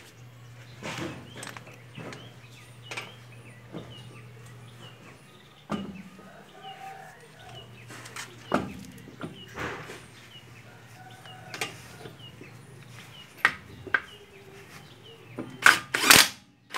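Scattered clicks and knocks of lug nuts and a socket being handled on an alloy wheel, with birds chirping in the background. Near the end, a Bosch impact wrench hammers in two short, loud bursts as it runs a lug nut on.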